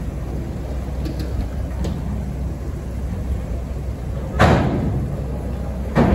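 Steady low rumble of the ferry's engines, with two heavy clanks, one about four and a half seconds in and one near the end, as the ferry's bow ramp comes down onto the pier pontoon.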